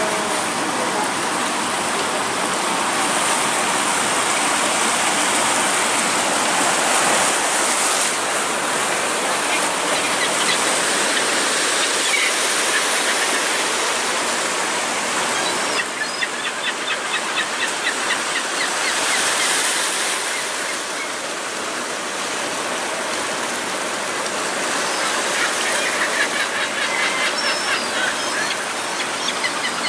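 Seawater washing and splashing over shoreline rocks, a steady rush. Gulls call in quick runs of short notes, once about halfway through and again near the end.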